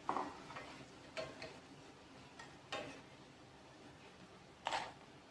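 A few separate light metal clinks of a spoon against the frying pan as fried boondi is lifted out of the oil.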